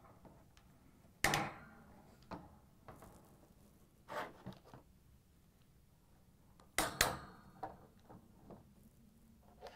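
Plastic wheel assemblies snapping onto the wire frame of a Whirlpool lower dishwasher rack, with clicks and knocks of the wire rack being handled. The sharpest snaps come about a second in and a double one near seven seconds.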